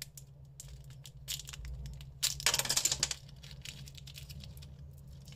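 Thin clear plastic candy wrapper crinkling and tearing in the fingers as it is opened, in many small crackles and clicks. A louder stretch of crackling comes about two and a half seconds in. A low steady hum runs underneath.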